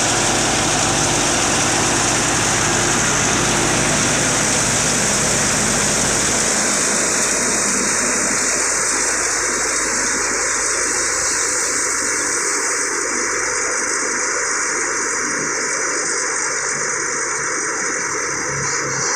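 Steady loud rushing hiss of a tractor-driven wheat thresher at work, with the tractor engine's low hum under it for the first six seconds or so before it fades, leaving the hiss.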